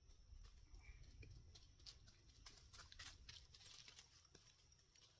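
Faint trickle and patter of water at a small spring, with scattered light ticks.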